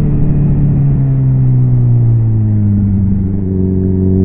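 Suzuki B-King motorcycle's inline-four engine, its pitch falling steadily as the bike slows for a bend, then starting to rise again near the end as the throttle opens, with road and wind noise underneath.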